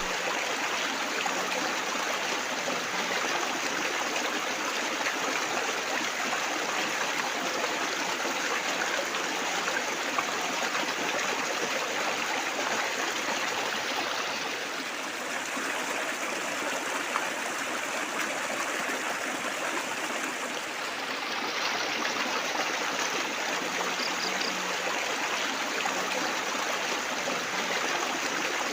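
Running water trickling and splashing in a steady, continuous babble, easing a little for several seconds about halfway through.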